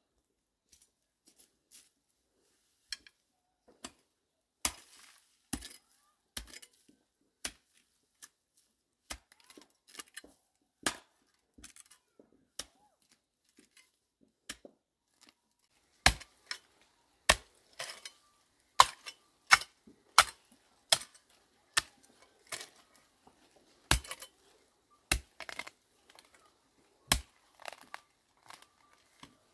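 A series of sharp, irregular knocks and cracks with quiet gaps between them. They are sparse at first and come closer together and louder from about halfway through.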